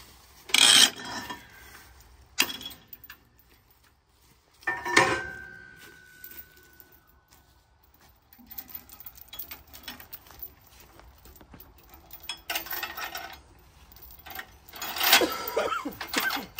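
Steel log-binder chains and chain binders clanking against a log truck's steel stakes as the load is chained down. Three sharp metal clanks in the first five seconds, one ringing on for a few seconds, then bursts of chain rattling later on.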